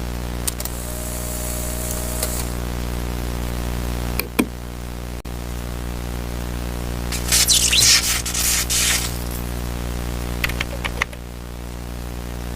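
Steady electrical-sounding hum with a string of short sound effects over it: a faint held tone with hiss near the start, a sharp click about four seconds in, a louder burst of hiss a little past halfway, and a few clicks just before the end.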